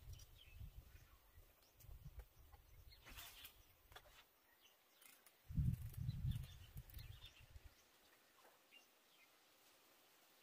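Quiet outdoor ambience with scattered faint bird chirps. Low rumbling bursts on the microphone come through the first half, strongest for about two seconds past the middle, then die away.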